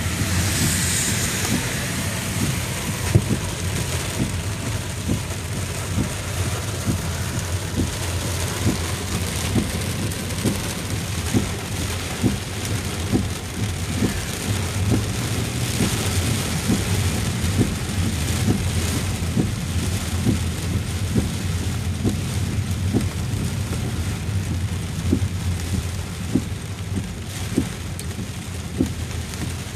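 Inside a car driving on a flooded highway in heavy rain: steady engine and road noise with tyre hiss on wet pavement and rain beating on the car. A burst of hiss opens it.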